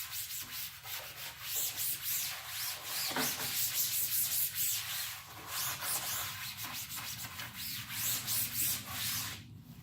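Paper towels wet with paint thinner scrubbed back and forth over a screen-printing screen's mesh, wiping out leftover ink, in repeated strokes about two a second that stop just before the end.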